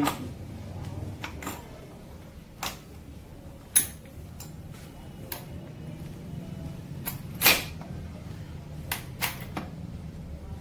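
Steel gears and the gear selector clinking against each other and the aluminium casing as they are seated by hand on their shafts in a Royal Enfield Bullet gearbox: about ten separate metal clinks, the loudest about four and seven and a half seconds in, over a low hum.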